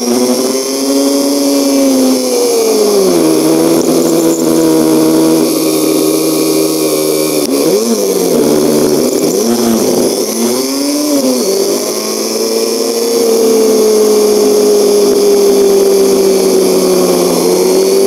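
A 1973 BMW R75/5's 750 cc air-cooled flat-twin engine running while riding with a sidecar attached. The engine note drops about three seconds in, swings up and down several times between about seven and twelve seconds, then holds fairly steady.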